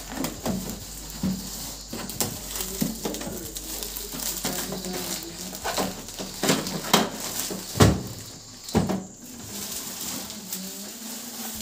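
Clear plastic packing wrap crinkling and rustling as it is pulled off a new inkjet printer, with scattered clicks and knocks of hands on the printer's plastic body; two louder knocks come about eight and nine seconds in.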